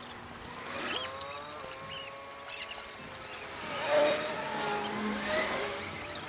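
Fast-forwarded riverside audio: voices and background sounds sped up into many short, high-pitched, squeaky chirps and warbling glides.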